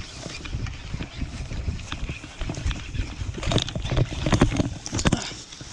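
Close handling noise as hands rig fishing tackle right by the microphone: irregular clicks and knocks over a low rumble, busiest from about three and a half to five seconds in.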